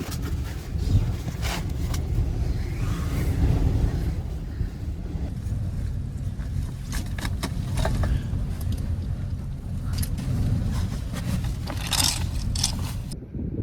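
Low wind rumble buffeting the microphone, with scattered scrapes and knocks close by.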